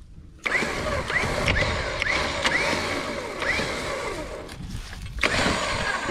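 Electric winch motor mounted on a truck's front bumper, run from its corded remote: a steady motor whine with short rising chirps about twice a second, starting about half a second in, dipping briefly near five seconds, then running again.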